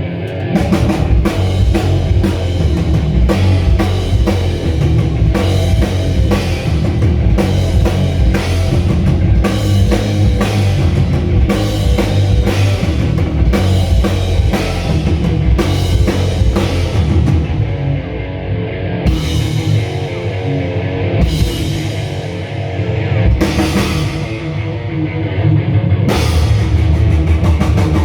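Rock band playing live on stage during a sound check: a pounding drum kit with a heavy bass end, plus guitar. The cymbals drop back for a stretch past the middle, then the full band comes back in near the end.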